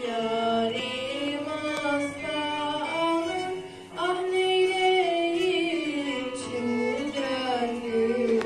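A girl singing a slow song into a microphone, with violin accompaniment, holding long notes that slide between pitches. There is a short break between phrases about four seconds in.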